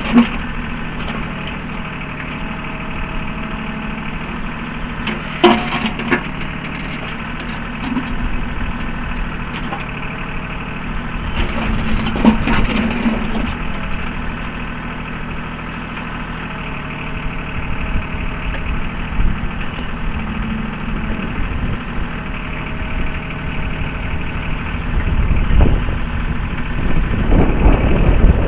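A Mahindra 3616 compact tractor's diesel engine runs steadily while its 3720 backhoe digs. A higher whine comes and goes several times, and there are a few sharp knocks, with the engine working harder near the end.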